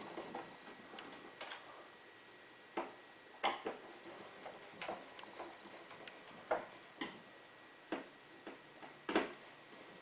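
Flathead screwdriver turning the small screws of a light-switch cover plate, giving faint, irregular clicks and short scrapes as the blade works in the screw heads.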